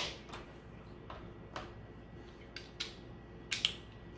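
Scattered light clicks and taps of a flat screwdriver and small plastic microphone parts being picked up and handled on a tabletop, about eight in all, the loudest right at the start.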